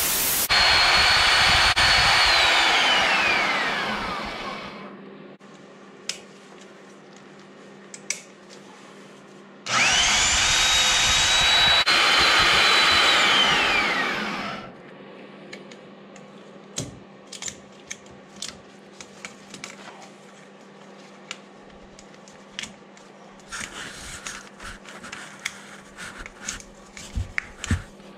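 Heavy corded electric drill boring into the end of a Wisconsin VH4D engine's crankshaft. It runs in two bursts of about four to five seconds, each ending in a whine that falls as the motor winds down. Between and after the bursts come light clicks and knocks of metal being handled.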